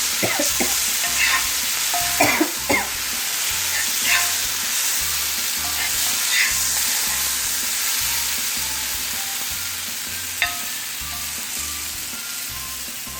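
Boiled eggs frying in oil on a dosa griddle, sizzling steadily with sharp pops and spatters, several in the first three seconds and a lone one about ten seconds in; the sizzle eases slightly toward the end.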